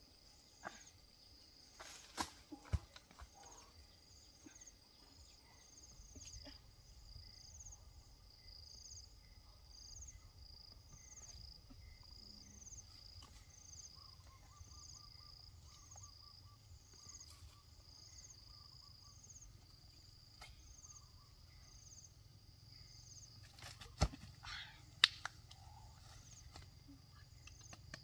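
Insects chirping steadily in an even, pulsing rhythm. A few sharp knocks come about two seconds in and again near the end.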